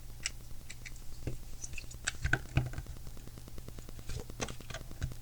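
Plastic Lego bricks clicking lightly as they are handled and worked on, a scattered series of short, light clicks.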